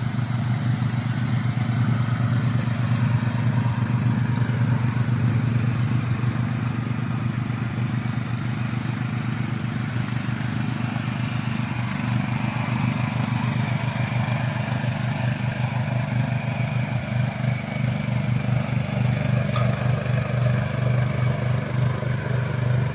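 Crawler slope mower's 23 HP 764 cc Loncin petrol engine running steadily with a low, evenly pulsing drone.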